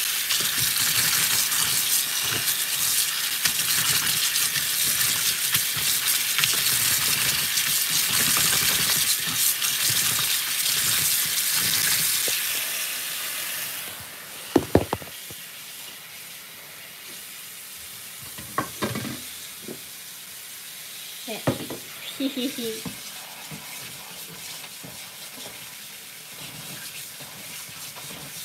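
Tap water splashing onto boiled soba noodles in a bamboo zaru basket as they are rubbed and rinsed by hand to wash off their stickiness, a steady rushing spray. About thirteen seconds in it drops to a much quieter flow, with a few sharp knocks.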